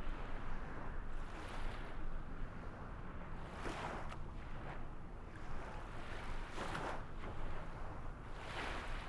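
Waves washing, swelling about every two to three seconds over a steady rushing of water.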